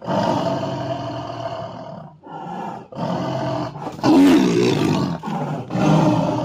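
Adult white tiger snarling and roaring with bared teeth, about five drawn-out calls with short breaks between them. The loudest and harshest comes about four seconds in, as it lunges forward.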